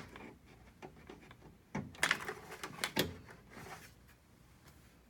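Clicks and knocks of a power plug being pushed back into the rear socket of an electronic keyboard, with a cluster of handling knocks about two seconds in and another about three seconds in.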